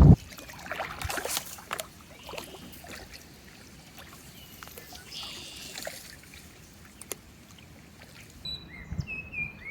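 Faint water sounds of a kayak on a slow river: paddle splashes and drips with a few light knocks. Near the end come a few short high chirps.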